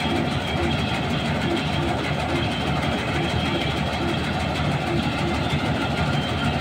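Rice combine harvester running steadily while harvesting paddy, its engine and threshing machinery making a continuous drone with a faint regular pulse a few times a second.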